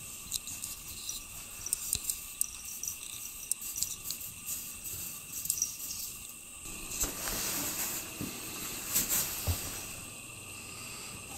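Faint crunching and scratching of packed snow as a cat paws and digs at a snowdrift, heard as many small crackles. The crunching gets louder and denser for a few seconds past the middle.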